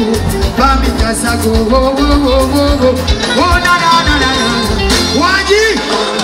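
Live band music with a male singer singing into a microphone over a steady bass and drums; his voice slides upward in a long run a little after five seconds in.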